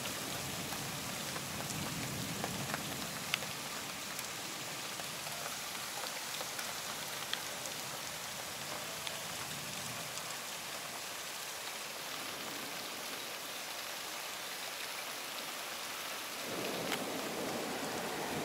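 Heavy rain pouring down, a steady dense hiss with a few sharper drop ticks. Near the end, a louder, lower rushing noise joins it.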